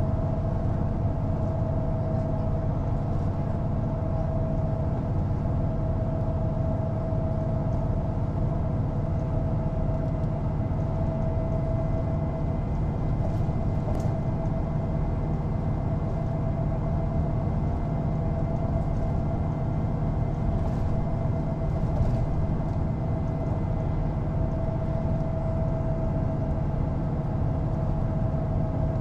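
Mercedes-Benz O405NÜ city bus running at a steady pace, heard from inside the passenger cabin: an even diesel drone with a steady whine above it and a few faint clicks and rattles.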